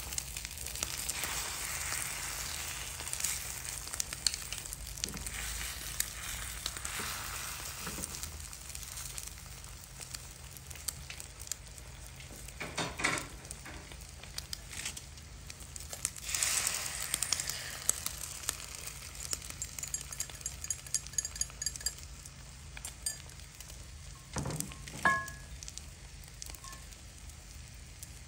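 Eggs frying in oil in a nonstick pan: a steady sizzle full of small crackles and pops that slowly grows fainter. A short sharp knock with a brief ring stands out near the end.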